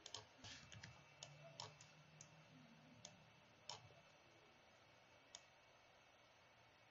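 Computer mouse clicking: about nine short, sharp clicks at irregular intervals, closer together in the first couple of seconds and then sparser.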